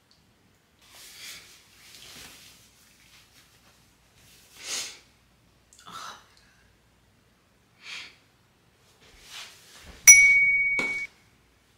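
A few soft, short breathy sounds, then about ten seconds in a single loud bell-like ding: one clear tone that rings for about a second. It is a notification-style sound effect marking an on-screen text banner.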